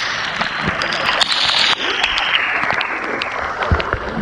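Waterfall rushing steadily, with a few scattered clicks and knocks. Its tone shifts abruptly a little under halfway through.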